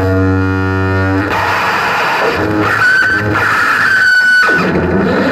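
Loud live experimental noise music. A buzzing drone with many overtones breaks off about a second in into a dense noisy texture, and a high held whistle sounds through the middle.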